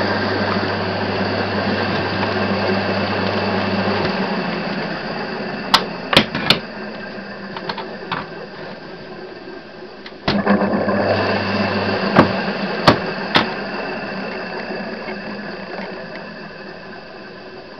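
Siemens three-phase electric motor running on a 240 V single-phase supply, with a steady mechanical whirr and a strong electrical hum. The hum cuts out about four seconds in and comes back briefly around ten seconds in. Several sharp clicks are heard, and the running sound fades toward the end. To the owner it sounds a bit tired, and he thinks the bearings are somewhat worn.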